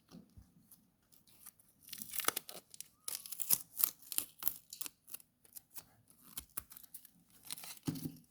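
Packaging being torn and crinkled by hand: a run of short rips and crackles, busiest from about two seconds in.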